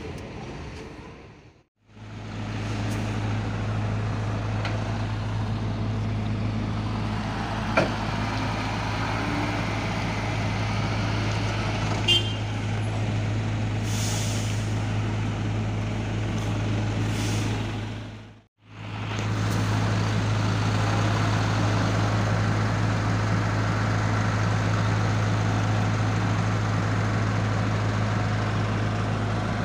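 Heavy diesel truck engine running at a steady idle, a deep even hum. The sound cuts out briefly twice, near the start and about halfway through.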